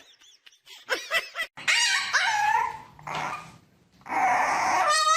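A dog making a run of short, pitched whining and barking calls that grow loudest near the end.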